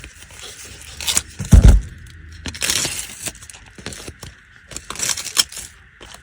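Crinkling and crackling of foil mastic tape being handled and pressed onto sheet-metal ductwork, with a heavy thump against the metal about a second and a half in.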